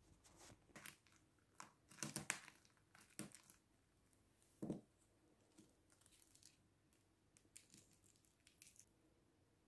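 Quiet crackling and clicking of a hard-boiled egg's shell being cracked and peeled by hand, with one knock of the egg against the wooden table about halfway through.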